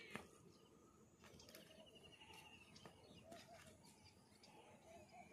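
Near silence with faint bird calls: a high warbling trill and a lower wavering call repeated about every second and a half, with a few faint clicks.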